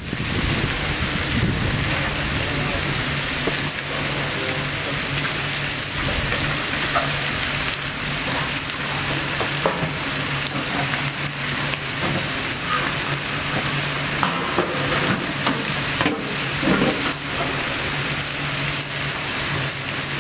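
Food sizzling steadily as it fries, with a low steady hum underneath and scattered taps and clicks.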